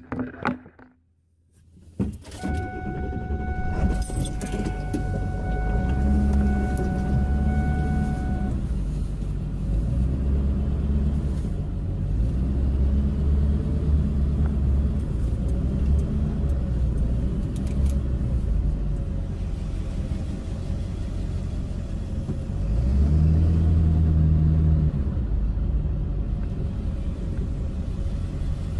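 A vehicle's engine running with a low rumble that swells and eases, coming in about two seconds in. A steady high whine sounds alongside it for the first six seconds or so.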